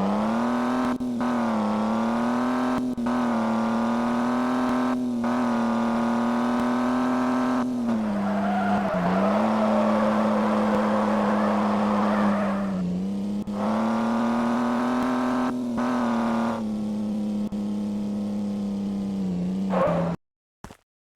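Outdoor tornado warning siren sounding a steady wail after winding up, its pitch sagging and recovering slightly a few times, then cutting off abruptly near the end.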